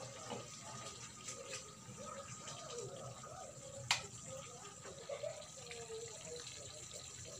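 Faint scraping and slopping of a wooden-handled ladle scooping saucy chicken from a metal frying pan into a bowl, with one sharp clink about four seconds in.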